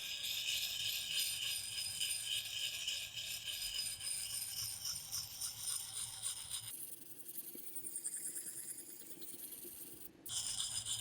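A wet, coarse-grit puck sharpening stone rubbed in small circles on a steel axe blade: a steady gritty scraping with a quick rhythmic pulse. It turns quieter about two-thirds of the way in and comes back louder near the end.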